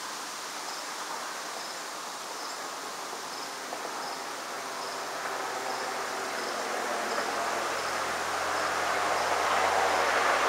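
An insect chirping high and evenly, about once a second, over a soft outdoor hiss. From about halfway through, a rushing noise swells steadily and covers the chirps.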